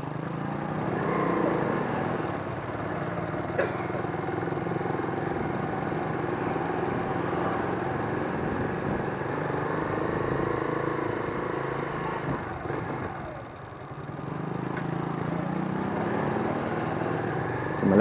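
Motorcycle engine running as the bike rides along at low speed, heard through a microphone inside the rider's helmet. About thirteen seconds in the engine note drops and goes quieter, then picks up again.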